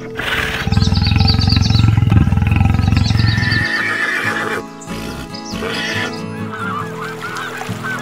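A loud, low, pulsing animal call for about three seconds, then domestic geese honking repeatedly from about two-thirds of the way in, over background music.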